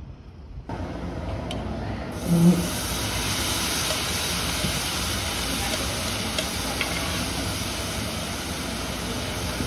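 Webfoot octopus and bean sprouts sizzling steadily in a hot cast-iron pan on a portable gas burner as they are turned with tongs. The sizzling comes in about two seconds in, just after a brief low sound that is the loudest moment.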